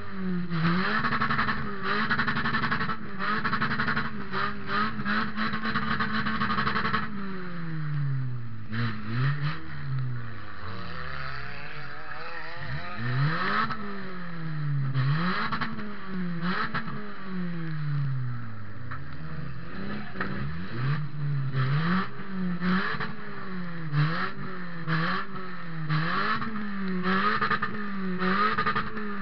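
Toyota Matrix's four-cylinder engine heard from inside the stripped cabin, held at high revs for several seconds and then revving up and dropping back over and over, about every one to two seconds, as the car drives in a demolition derby. Loose metal clatters and knocks throughout.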